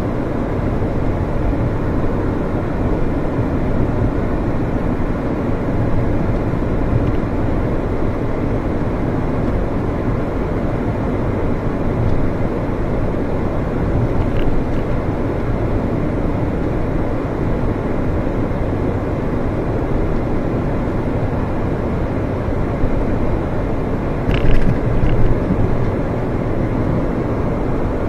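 Alfa Romeo 156 driving at a steady speed, its engine and tyre noise heard from inside the cabin as an even rumble. A couple of brief sharp knocks come near the end.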